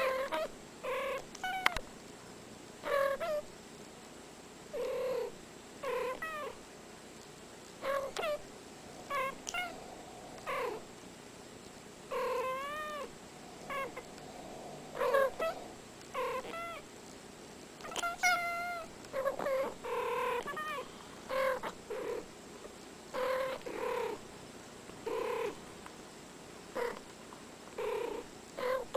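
Two domestic cats trading short meows back and forth, a call every second or so, some sliding up and down in pitch.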